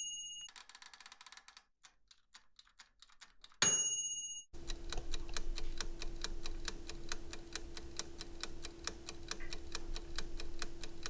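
Timer ticking, broken by a single bell ding about three and a half seconds in; then a second, faster ticking starts, even and rapid, over a steady hum.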